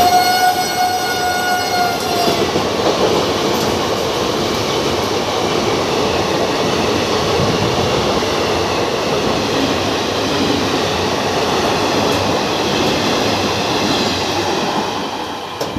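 Passenger coaches of an express train rushing past at speed, wheels clattering over the rail joints in a steady loud roar. A high, steady ringing tone sounds for the first two seconds and falls off slightly as it stops. The roar eases right at the end as the last coach passes.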